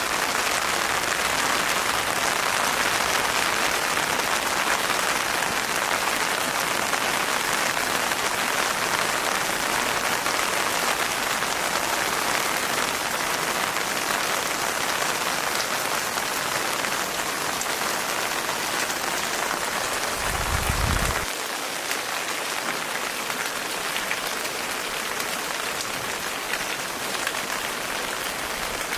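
Steady rain pattering, an even dense hiss. About two-thirds of the way through there is a brief low rumble lasting about a second, after which the rain is slightly quieter.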